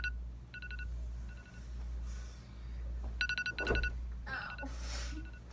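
A phone alarm beeping in short bursts of rapid pulses that repeat every second or so. There is rustling about two and four to five seconds in, over a steady low hum.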